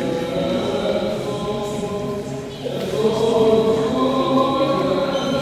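Choral chanting: several voices holding long sustained notes, moving to a new, louder chord about halfway through.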